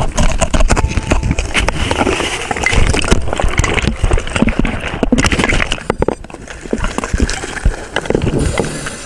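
Scuba diver's rapid, heavy breathing through a regulator under water, with gurgling exhaust bubbles and a run of knocks and rattles, easing off for a moment about six seconds in. It is the panicked breathing of a diver in trouble deep down, affected by nitrogen narcosis.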